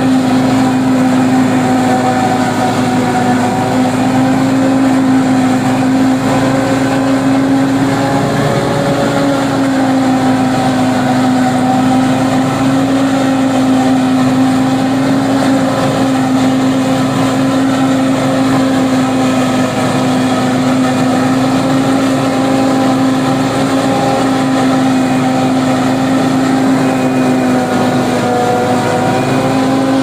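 Tractor under load driving a Fimaks MC10X tractor-mounted single-row forage harvester chopping standing corn for silage and blowing it into a trailer: a loud, steady mechanical drone with a strong even hum. The pitch sags slightly about nine seconds in and again near the end.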